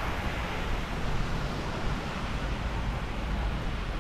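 Wind buffeting the microphone as a steady low rumble, over an even rushing hiss.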